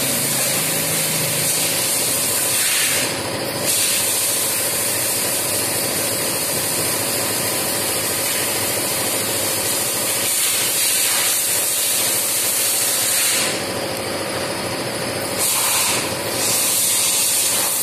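A steady, loud hiss, with its highest part dropping away briefly about three seconds in and a few times near the end.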